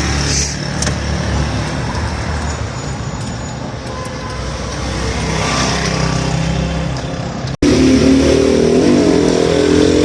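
A motor vehicle engine running steadily, with road traffic noise around it. After a sudden break about three-quarters of the way through, a louder, wavering engine-like drone takes over.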